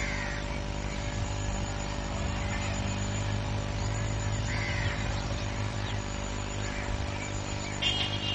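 A steady low hum throughout, with a few faint bird calls over it and a clearer call near the end.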